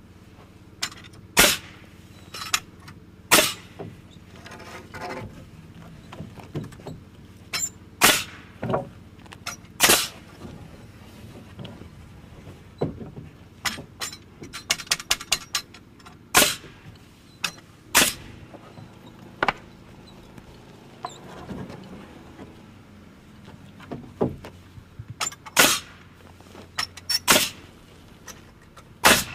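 Pneumatic framing nailer firing nails into wooden roof rafters: sharp, loud shots at irregular intervals, a couple of dozen in all, with a quick run of closely spaced lighter clicks about halfway through.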